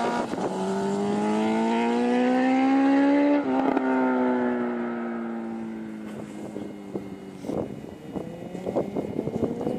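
1000cc sport motorcycle engine revving hard under acceleration, its pitch climbing steadily and then dropping sharply at a gear change about three and a half seconds in. The pitch then sinks slowly as the sound fades, with scattered knocks and wind buffeting, and the engine climbs again near the end.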